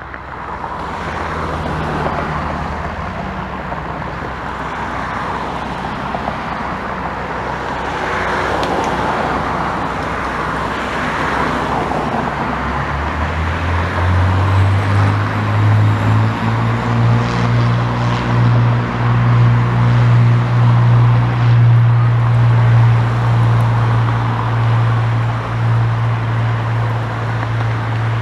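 Cessna 182T Skylane's six-cylinder piston engine and propeller running at low taxi power. About halfway through the engine note rises and gets louder into a steady, slightly pulsing propeller drone as power comes up.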